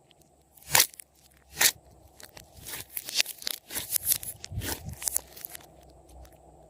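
Slime being squished and stretched by hand, giving sharp sticky pops and crackles: two loud pops close together, then a run of crackling through the middle that thins out near the end.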